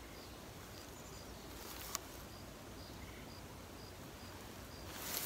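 Faint insect chirping: a short, high-pitched chirp repeated about three times a second, with a brief pause around the middle. A single faint sharp pop comes about two seconds in.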